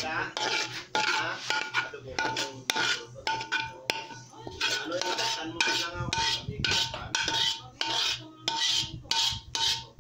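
A spatula scraping around the inside of a cooking pan in many short, irregular strokes, scooping thick spaghetti sauce out.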